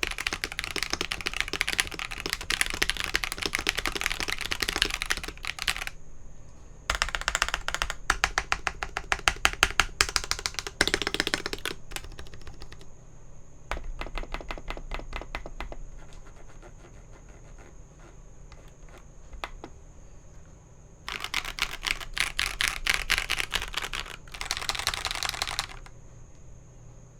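Typing on a gasket-mounted KalBro 75% mechanical keyboard with lubed Akko Radiant Red linear switches, an aluminum plate and foam applied. Fast runs of keystrokes are broken by a stretch of slower, single presses in the middle, then two more quick bursts near the end.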